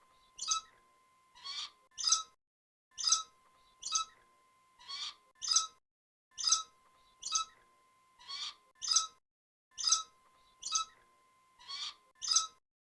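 Rat squeaking: short, high-pitched squeaks repeating about once or twice a second.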